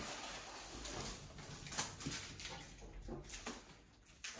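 Protective plastic film being peeled off a flat TV screen: rustling and crinkling of the film, with a few sharp crackles.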